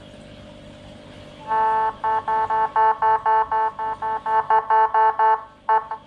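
Whelen Euro 60-watt siren module sounding through its horn speaker, turned down below 15% volume: a steady-pitched buzzing tone pulsed on and off about four times a second, starting about a second and a half in and stopping shortly before the end, followed by one short blip.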